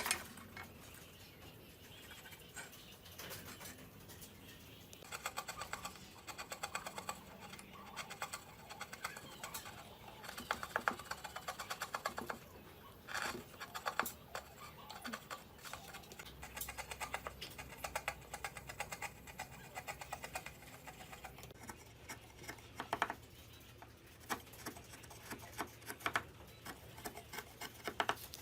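Hand tools working wood: runs of quick scraping, rasping strokes a second or a few seconds long, with short pauses and a few light knocks between them.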